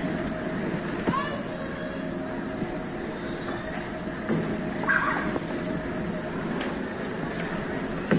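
Steady din of an indoor children's play area, with short high children's cries about a second in and again about five seconds in.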